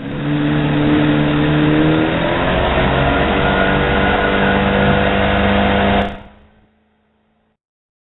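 Boat motor running at speed, its pitch rising slowly, until the sound cuts off abruptly about six seconds in.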